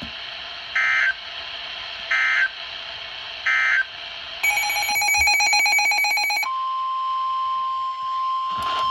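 NOAA Weather Radio alert signalling: three short data bursts about a second apart, the SAME end-of-message code closing the previous alert. Then about two seconds of a buzzing electronic tone with several pitches. About six and a half seconds in, the steady 1050 Hz Warning Alarm Tone begins, announcing a new warning.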